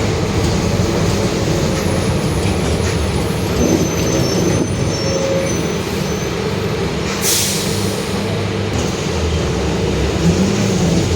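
Mercedes-Benz OF-1721 Bluetec 5 bus running, its diesel engine and drivetrain droning steadily with the growl of a noisy differential. A brief hiss of compressed air about seven seconds in.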